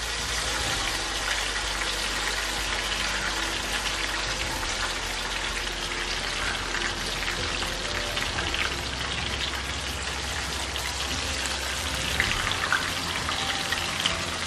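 Banana fritters in wheat-flour batter deep-frying in hot oil: a steady sizzle of bubbling oil, with a few sharper clicks near the end as they are lifted out with a slotted spoon.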